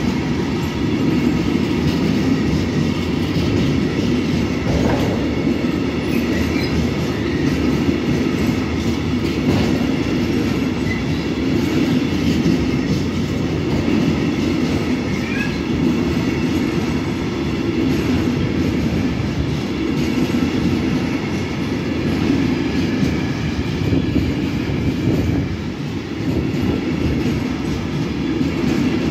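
Freight train of tank wagons rolling steadily past, its wheels giving a continuous rumble on the rails.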